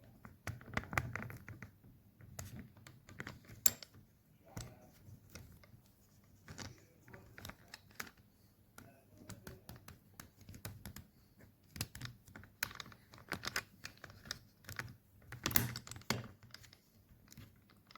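Handling noise as a phone is fitted into its adapter on a microscope eyepiece: irregular small clicks, taps and scrapes against the phone body, with a couple of sharper knocks.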